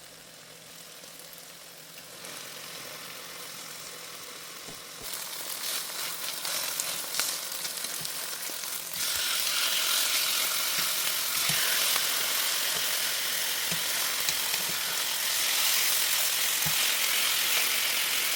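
Marinated chicken sizzling as it fries in a hot pan with only the marinade's oil, a steady hiss with scattered small pops. The sizzle grows louder in steps about 2, 5 and 9 seconds in.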